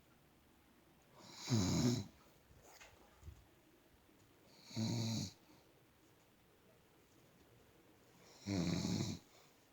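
An elderly woman snoring in deep sleep: three rasping snores, each under a second long, about three and a half seconds apart.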